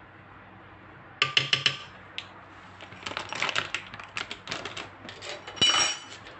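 A metal spoon tapping and clinking against a cooking pot while cornstarch is knocked off it: four quick loud taps a little after a second in, a run of lighter clicks, and one louder knock near the end.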